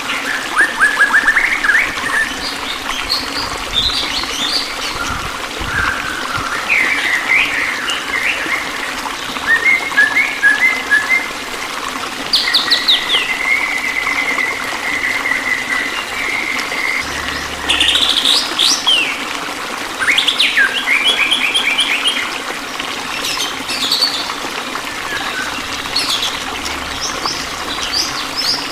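Several songbirds chirping, trilling and whistling in quick overlapping phrases over a steady rush of flowing water.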